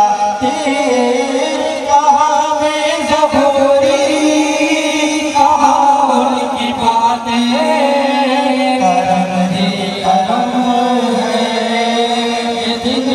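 A devotional chant (naat) sung with music behind it, the voice holding long, gliding melodic lines.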